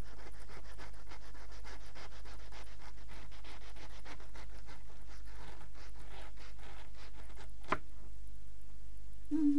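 Kitchen knife sawing back and forth through an Umaibo puffed corn snack stick on a cutting board: rapid scraping strokes, then a single sharp tap about three-quarters of the way in as the cutting stops.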